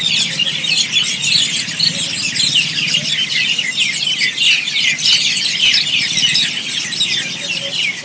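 A large flock of birds chirping all at once in trees as they gather to roost at dusk: a dense, unbroken chorus of many short, high chirps.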